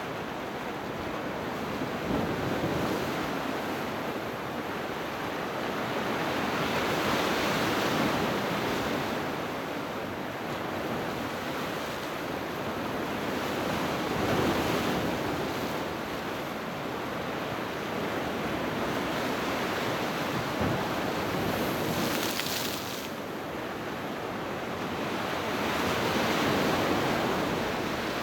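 Sea waves breaking on the shore, their rushing noise swelling and ebbing in slow surges, with a short, sharper hiss about three-quarters of the way through.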